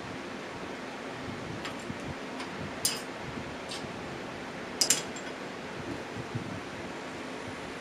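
A few sharp metal clinks, the loudest two about three and five seconds in, from steel wrenches and the bolted steel plates of a shop-made lathe steady rest being handled, over a steady background hum.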